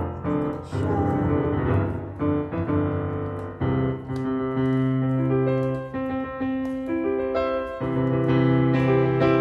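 Background piano music with sustained notes.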